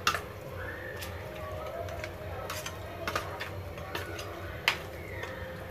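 Metal spoon stirring mutton chops through a thick marinade in a stainless steel bowl, with scattered clinks of spoon against bowl. The sharpest clinks come at the start and about three quarters of the way through.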